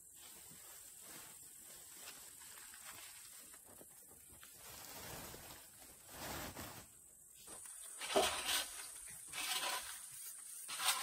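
Faint, soft rustling and scraping of wood shavings being scooped up by hand and stuffed into a woven plastic sack, with several louder rustles near the end.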